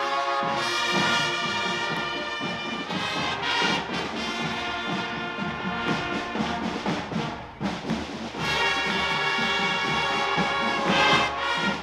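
Middle school marching band playing a tune, led by brass such as trumpets and trombones, with a short break in the playing about two-thirds of the way through.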